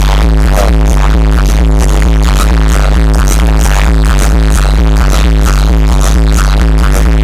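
Loud electronic dance music from a live DJ set, with a heavy, unbroken bass and a repeating beat.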